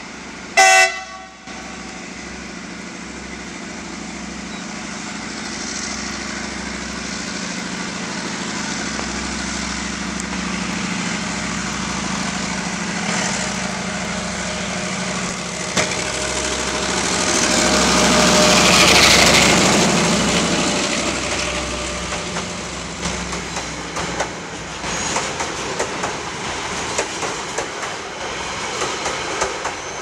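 CRRC CDD5 diesel-electric locomotive hauling a loaded coal train: a short horn blast less than a second in, then its diesel engine running steadily, growing louder as it approaches and passes about two-thirds through. After that come loaded coal hopper wagons clattering over the rail joints.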